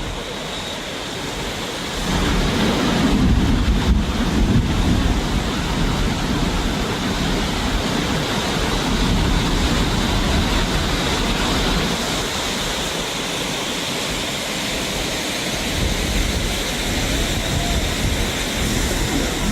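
Steady rush of a swollen flood river, with low wind rumble on the microphone; it grows a little louder about two seconds in.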